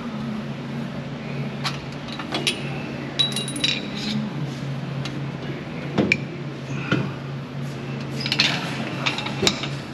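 Metal tools and parts clinking and knocking now and then over a steady low hum.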